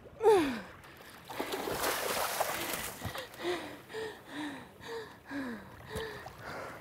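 Hooked blacktip shark splashing and churning the water at the side of a boat for about two seconds. A falling pitched cry comes near the start, and a string of short pitched vocal sounds follows, about two a second.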